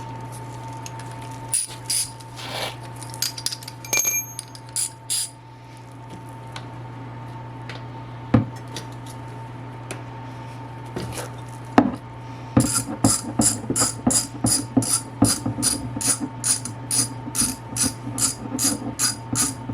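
A few clinks and knocks of hand tools, then, about two-thirds of the way through, a socket ratchet clicking steadily at about three clicks a second as the oil drain plug is loosened.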